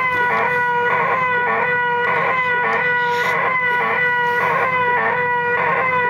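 A young person's voice holding one loud, high, unbroken 'eeeh' at a steady pitch, with a regular pulsing, offered as the most annoying sound in the world.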